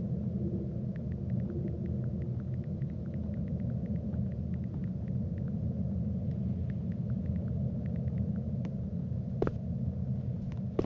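A steady low rumble, with faint crackling clicks scattered through it and a sharper click about nine and a half seconds in.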